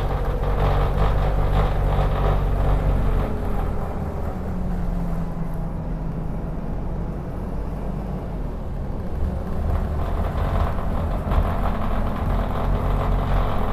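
A vehicle's engine running steadily, with the unusual noise that its owner is showing off as a fault.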